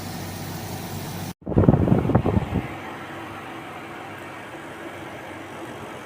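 Steady running hum and hiss of a portable air conditioner. About a second and a half in the sound cuts out for an instant, then comes a loud burst of knocking lasting about a second, after which the steady hum resumes with less hiss.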